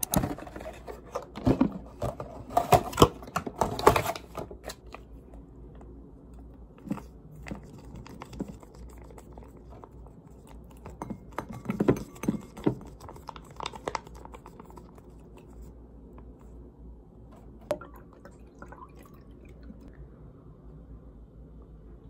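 Handling sounds of a juice pouch and a glass: a run of sharp clicks and clatters, loudest in the first few seconds, then more clicks as orange juice is poured from the pouch into the glass near the middle, with a single sharp tap later on.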